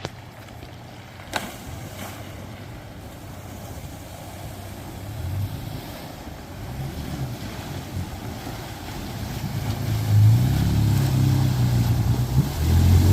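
Pickup truck engine running low through a river crossing, growing louder about ten seconds in, over a steady wash of noise. A single sharp click a little over a second in.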